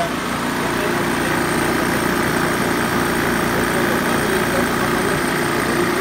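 Inficon Vortex Dual refrigerant recovery machine running with a steady mechanical drone, its compressor pulling refrigerant out of an air-conditioning unit.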